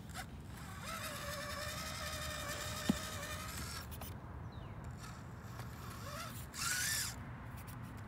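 Micro RC rock crawler's Furitek Micro Komodo brushless motor and drivetrain whining steadily for about three seconds as the truck climbs over rocks, with a sharp click in the middle, then a second, shorter whine near the end.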